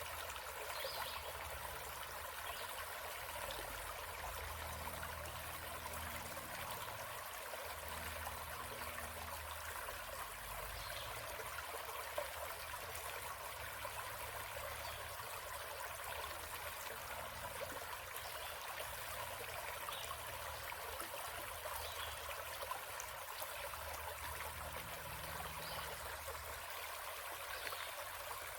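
Small forest stream running and trickling steadily over stones.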